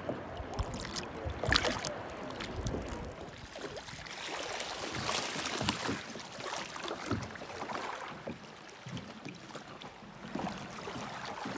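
Sea water lapping and splashing around the plastic hull of a sit-on-top kayak, with a sharper splash about a second and a half in.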